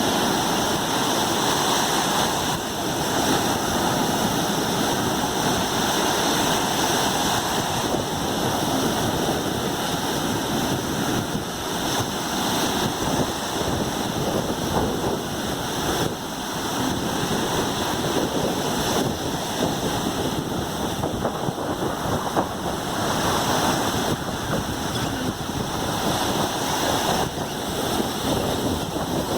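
Gulf of Mexico surf breaking and washing up on a beach: a continuous rush of waves that swells and eases, with wind buffeting the microphone.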